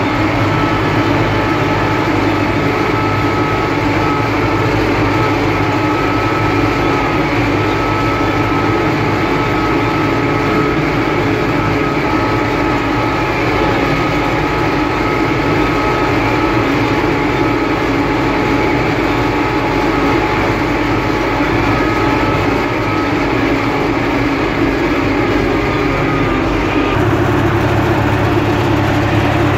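UTB Universal 650 tractor's diesel engine running steadily under load, pulling a combinator (seedbed cultivator) across a field, heard from inside the cab. About 27 seconds in, the low part of the engine note shifts.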